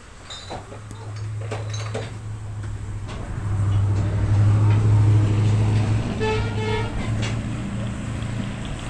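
Steady low hum of a moving vehicle, swelling to its loudest about four to six seconds in and then easing off, with a few clicks in the first two seconds.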